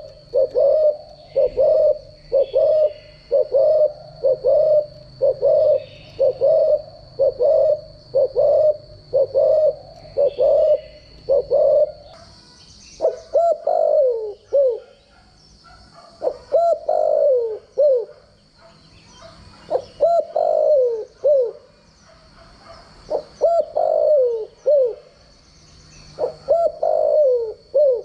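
Spotted dove cooing. It opens with a fast, even run of short coos, a little under two a second. About twelve seconds in it changes to separate phrases of several coos that fall in pitch, one about every three seconds.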